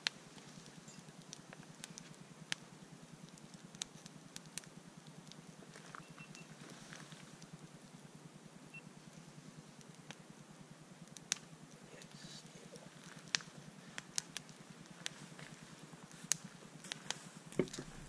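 Wood campfire crackling, with irregular sharp pops and snaps over a low, steady background.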